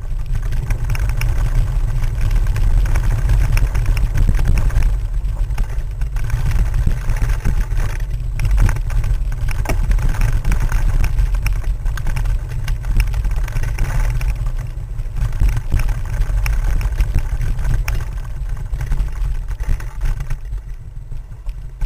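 Mountain bike riding over a rough dirt trail, picked up by a camera mounted on the bike: a heavy low rumble of vibration with many scattered knocks and rattles, easing off a little near the end.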